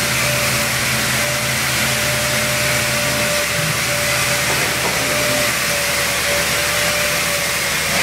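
Automatic 9-spindle drilling and tapping machine running, a steady motor whine over the hiss and splash of coolant spraying onto the workpiece.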